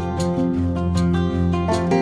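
Background music: a plucked acoustic guitar playing a melody, with notes changing every half second or so.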